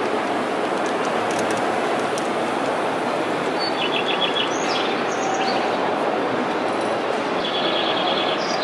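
Birdsong played from a model railway layout's sound effects: two short runs of quick high chirps, about halfway through and again near the end, over a steady background noise.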